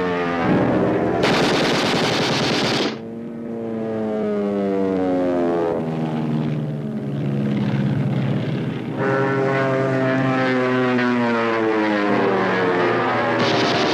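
Propeller fighter planes' piston engines droning, their pitch sliding up and down as they pass, with a loud burst of noise lasting about a second and a half near the start. A hiss of TV static cuts in just before the end.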